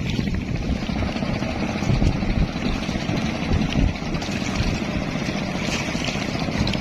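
Boat engine running steadily with a fast, even chug.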